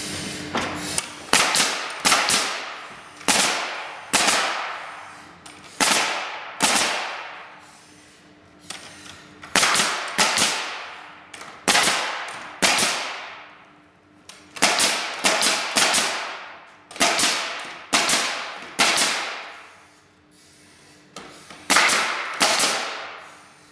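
Pneumatic coil nailer firing nails into wooden pallet boards and blocks: about eighteen sharp shots in quick runs, with two short pauses, each shot trailing off over about a second.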